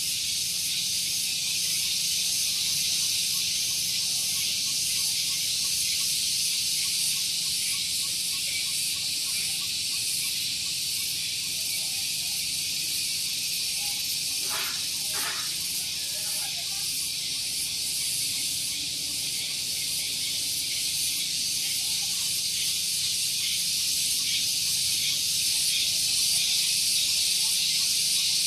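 Cicadas singing in a dense, continuous, high-pitched shrill drone that holds steady without a break.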